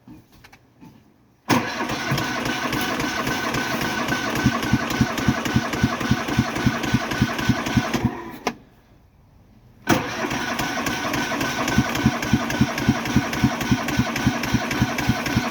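Cub Cadet Series 2000 lawn tractor engine being cranked on its starter in two long attempts, a pulsing churn that starts suddenly, tails off, and starts again about two seconds later. It is a hard start after eight months of sitting, with little fuel in the tank.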